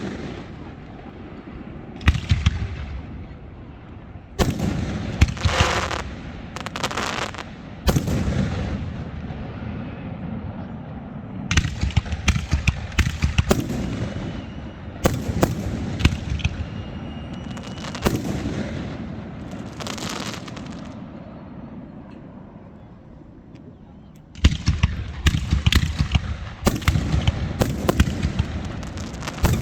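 Fireworks going off: sharp bangs every second or two, each with a long echoing rumble, and a fast run of crackling bangs near the end.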